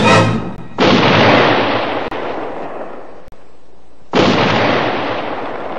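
Music cuts off, then two sudden crashing bursts, about three seconds apart, each slowly dying away, like explosion sound effects in a cartoon soundtrack.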